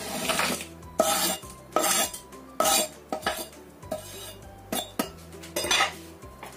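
Chunks of brown palm sugar (gula merah) and a spoon clattering into a metal cooking pot: about eight sharp, irregular knocks and clinks.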